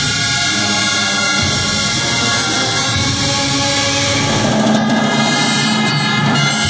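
Wind band of clarinets, brass and timpani playing a slow funeral march in held chords.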